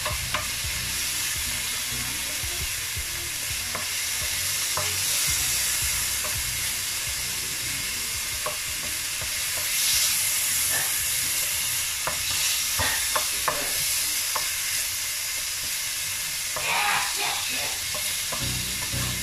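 Diced chicken sizzling in hot olive oil in an electric frying pan, with a wooden spoon scraping and knocking against the pan as the pieces are stirred. The sizzle is a steady hiss, and the spoon makes short scattered clicks that come thickest about two-thirds of the way in and near the end.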